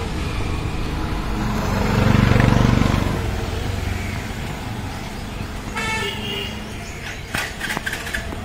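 Road traffic: a low engine rumble swells and fades about two seconds in as a vehicle passes, and a vehicle horn honks briefly about six seconds in. A few sharp clicks follow near the end.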